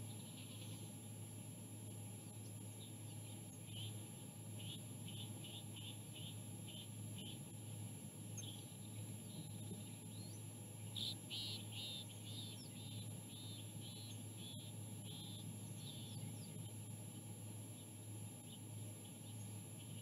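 Island scrub-jay calling: two series of short repeated notes at about two or three a second, the second series, about eleven seconds in, louder. A steady low hum runs underneath.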